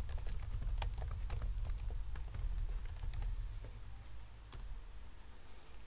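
Typing on a computer keyboard: a quick run of key clicks that thins out after about three and a half seconds, with one louder keystroke a little later. A low steady hum runs underneath.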